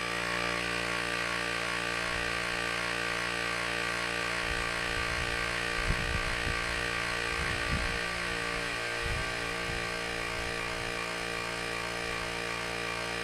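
Hamron battery-powered portable tire inflator running steadily, its small electric compressor pumping up a car tire toward a preset 2.3 bar. The pitch sags slightly about two-thirds of the way through, and a few faint low knocks come in the middle.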